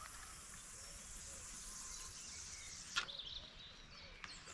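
Fishing line hissing off the spool of a spinning reel as a cast flies out, stopping with a sharp click about three seconds in. Faint bird chirps follow.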